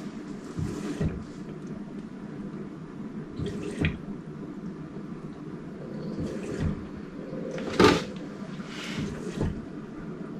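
Water running and splashing in a small room over a steady low hum, with irregular bursts and a sharp clatter about eight seconds in.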